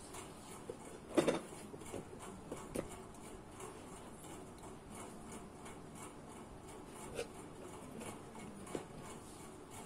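Cardboard shoeboxes being handled, lids lifted and set down with toys moved inside: a few soft knocks and rustles, the loudest about a second in, over a steady low background noise.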